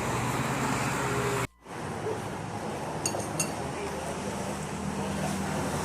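Steady traffic and eatery background noise, briefly cut to near silence about one and a half seconds in. A few light clinks of tableware, like a spoon on a noodle bowl, about three seconds in.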